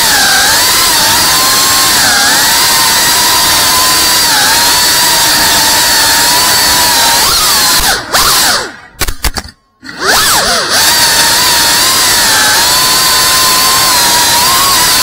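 FPV quadcopter's motors and propellers whining at a high pitch that wavers up and down with the throttle. About eight seconds in the pitch slides down and the sound almost stops for about a second, then winds back up.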